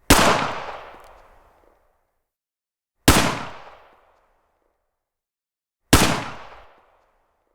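Three single rifle shots about three seconds apart, each a sharp crack followed by an echoing tail that dies away within a second or so.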